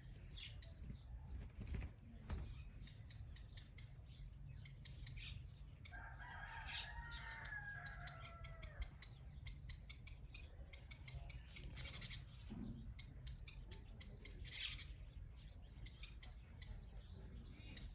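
A rooster crows once, a long call about six seconds in, among scattered high bird chirps and short clicks over a low steady hum.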